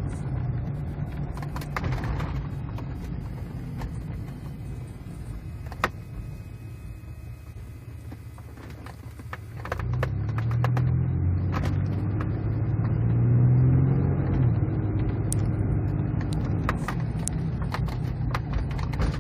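1999 Chevrolet Blazer's 4.3-litre V6 running while driving, quieter for a few seconds and then rising in pitch and loudness under acceleration about ten seconds in, the pitch rising and falling back as the automatic shifts. With the faulty 4x4-low module unplugged, the transmission shifts normally. A single click about six seconds in.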